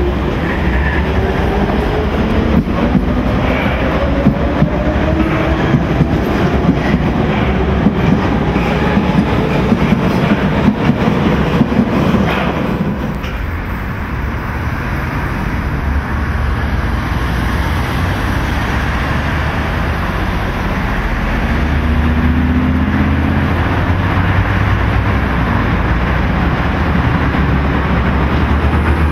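DT 2 U-Bahn train accelerating out of an underground station: its traction motors whine with a steadily rising pitch over wheel clatter. About halfway through the sound changes to a steadier rail rumble of U-Bahn trains running on open track.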